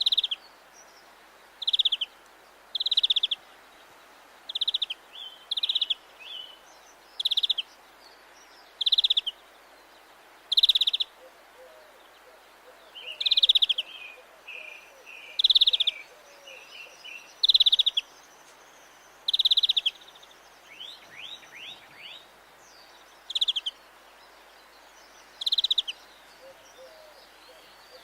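European greenfinch calling: a loud, buzzy trilled note about half a second long, repeated every one to two seconds, with softer twittering notes between. A few quick falling notes come about three-quarters of the way through.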